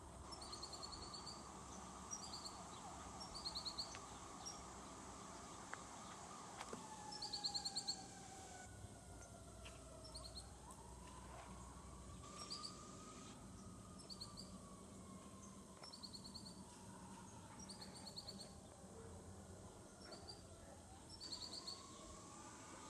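Faint fire truck siren wailing in the distance, its pitch sliding slowly down and up in long sweeps several seconds each. Short high chirps repeat about once a second over it.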